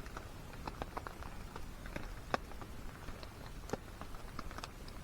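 Rain dripping and pattering at a wet campsite: irregular light ticks and taps over a faint steady hiss.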